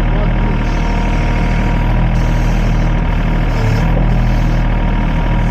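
Sany SY35 mini excavator's diesel engine running steadily while the boom and bucket work.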